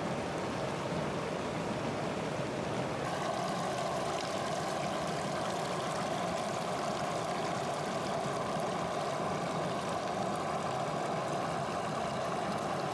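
Steady rush and splash of river water as an open clam shell is dipped and rinsed at the water's edge. About three seconds in the sound grows brighter and a faint steady hum joins it.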